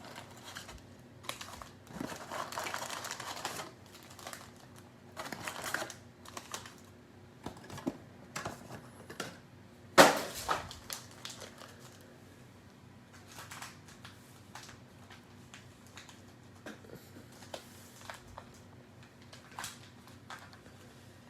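Cello-wrapped trading card packs and their box being handled and opened close up: crinkling plastic wrap, scattered taps and clicks, and one sharp snap about halfway through.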